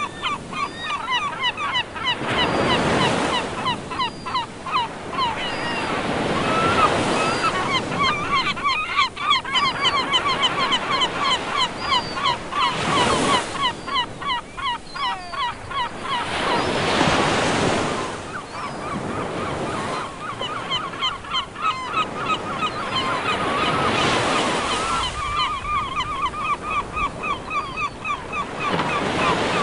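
A flock of seagulls calling constantly in many short, overlapping cries, over waves breaking and washing in every few seconds.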